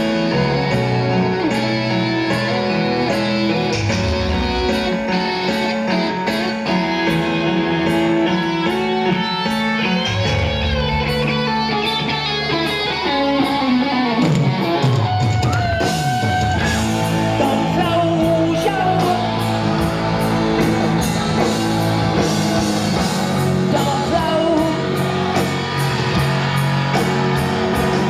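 Live rock band playing a power ballad, with an electric guitar lead out front. In the middle the lead bends and glides in pitch, with one long downward sweep.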